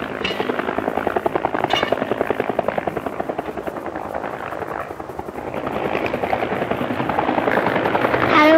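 Bell UH-1 'Huey' helicopter's main rotor chopping in a rapid, even beat. It dips about halfway, then grows louder toward the end.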